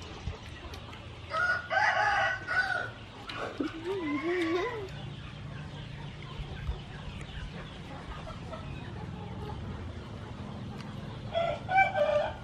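A rooster crows, about a second and a half in and again near the end, with a wavering lower call between.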